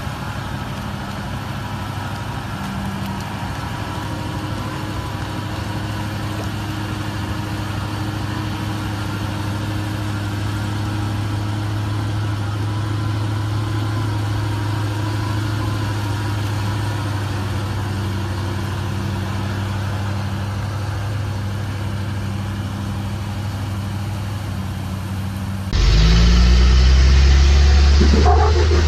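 Large diesel truck engines running at a steady, even pitch, slowly growing a little louder. About 26 s in it switches abruptly to a louder, deeper pickup engine as the truck crawls over rock.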